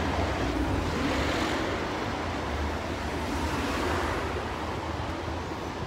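City street traffic: cars driving past on the road, a steady wash of road noise with a low rumble underneath.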